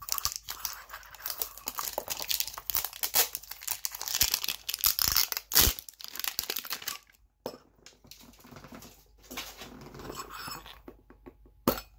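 Packaging being torn and crinkled off a metal Poké Ball collector tin: dense crackling for the first six seconds or so, with a sharp click about five and a half seconds in. After that come quieter taps and clicks as the tin is turned in the hands.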